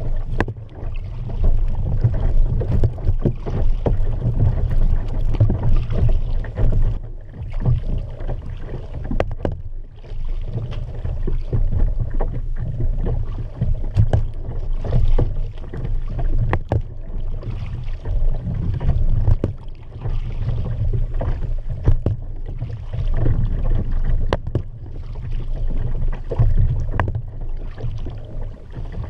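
Kayak being paddled: paddle blades dip and splash in a repeating stroke rhythm over a steady low rumble of water and wind on the kayak-mounted camera's microphone.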